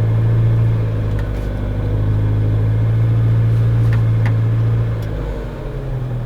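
1998 Honda Civic's four-cylinder engine running with freshly adjusted valve lash as the car sets off on a drive, a steady low drone that eases about five seconds in.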